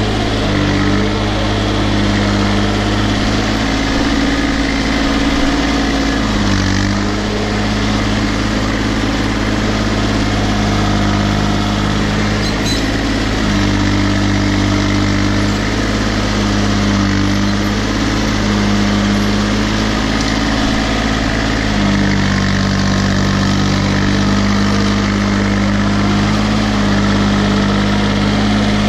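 Case 235 compact tractor's diesel engine running steadily, its note shifting in pitch a few times as it works.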